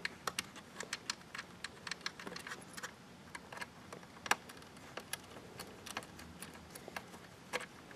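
Small screws being handled and fitted by hand into the back of a Synology DS215j NAS's plastic case: scattered light clicks and ticks, with one sharper click about four seconds in.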